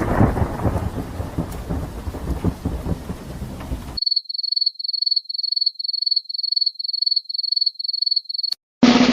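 Thunderstorm sound effect: rain with a loud thunder rumble at the start, cutting off about four seconds in. A cricket then chirps steadily on one high note, about three chirps a second. A drumroll starts just before the end.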